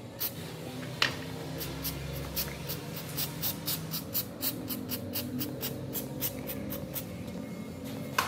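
Quick, repeated scraping strokes of a hand tool on a metal part, about four a second, with a sharper knock about a second in and another near the end. A low steady hum runs underneath.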